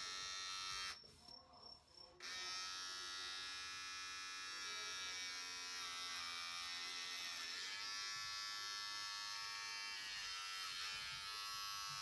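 Electric hair clippers buzzing steadily while cutting hair. They cut out for about a second near the start, then run again, with the pitch dipping briefly twice.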